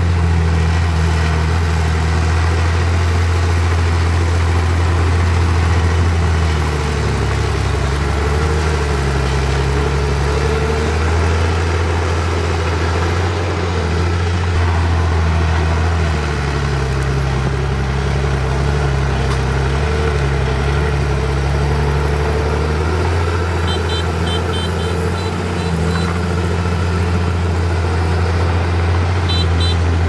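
Diesel engine of heavy earthmoving machinery running steadily, its pitch dipping and rising a little now and then as the load changes.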